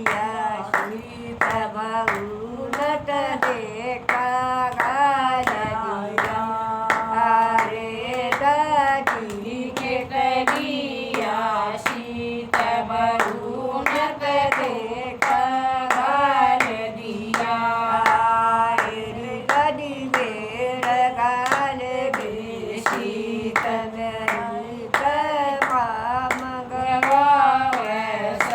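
A Haryanvi bhajan sung to steady hand clapping that keeps time, with the claps falling at an even pace under the sung phrases.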